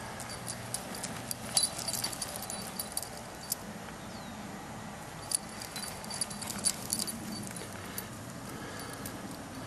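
Footsteps through grass with a light metallic jingle, heard as irregular clusters of sharp clicks over a steady low hum.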